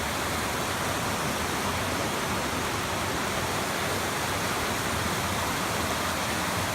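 Steady rushing of a river cascading over rock: the Mosquito River falls and its cascades.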